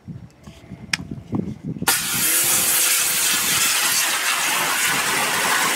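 Harbor Freight Portland 1750 PSI electric pressure washer starting up as the trigger is squeezed, a little under two seconds in. Its motor and pump then run steadily under the loud hiss of a narrow pencil-beam water jet spraying against the trailer's metal tongue and jack.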